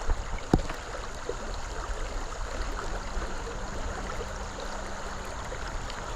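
Creek water running steadily, with a sharp click about half a second in.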